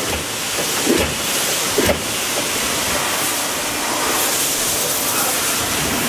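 Thermoforming machine for plastic containers running: a steady mechanical hiss, with a couple of short knocks in the first two seconds.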